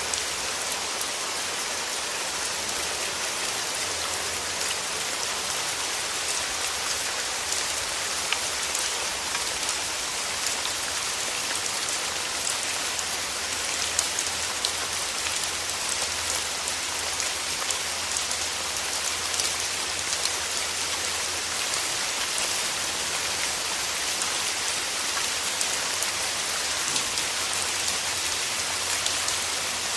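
Steady rain falling, a dense even hiss with fine patter of individual drops hitting a surface.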